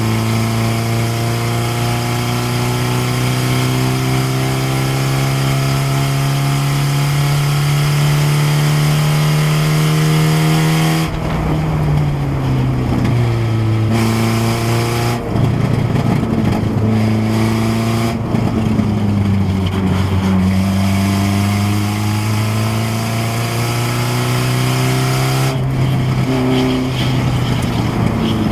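Race car's Saab engine under load, its pitch climbing steadily for about ten seconds, then dropping sharply as the driver lifts off. It then revs up and down several more times, with a rough, noisy stretch just after the first drop.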